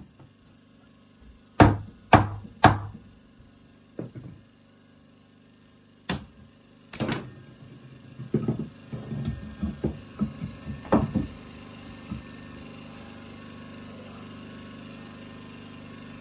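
Hard knocks on a wooden 2x4 counter frame: three in quick succession, then two more, followed by lighter knocking and clatter as loose pieces of wood are handled.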